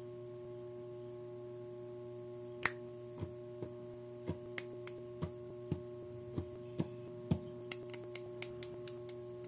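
LEGO-compatible plastic bricks and parts being handled and snapped together by hand: a string of sharp, irregularly spaced clicks starting about two and a half seconds in, over a steady hum.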